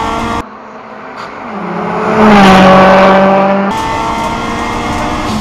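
Subaru Impreza WRX STI rally car's engine running hard at racing speed. Shortly after the start the sound cuts to a car approaching and passing, swelling to its loudest about two seconds in and dropping in pitch as it goes by. Then it cuts back to the steady engine note heard on board.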